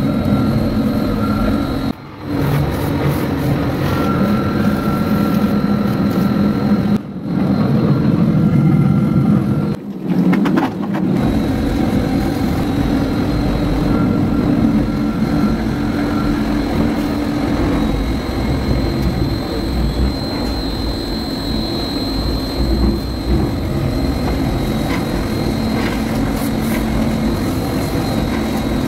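Paint disperser (high-speed mixer) motor running steadily, its spinning shaft churning thick white distemper in a drum as powder is added. The sound drops out briefly three times in the first ten seconds.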